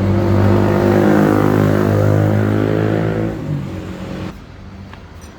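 Tigon TG CS350 G gas cut-off saw's single-cylinder two-stroke engine running loud and steady, then fading about three seconds in and dropping off sharply a second later.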